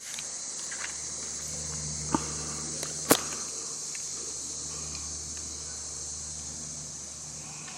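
Insects droning steadily in a high, even chorus, with a faint low hum underneath. Two sharp clicks cut through about two and three seconds in, the second one the loudest.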